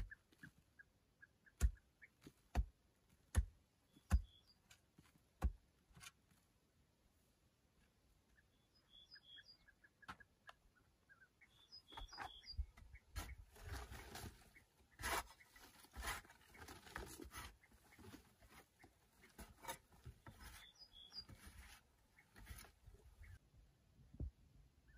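A pick striking packed sandy clay, six blows about a second apart. After a short lull comes a long stretch of scraping and crumbling as soil is worked loose from the earth wall, with a single knock near the end. Faint bird chirps are heard now and then.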